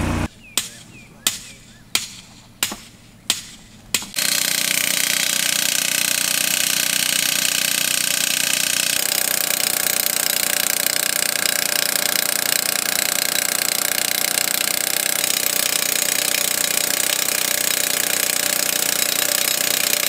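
Five sharp ringing strikes on metal about 0.7 s apart. Then a powered T-post driver starts hammering a steel T-post down into the ground, a steady jackhammer-like pounding that runs on and shifts slightly in tone about 9 seconds in.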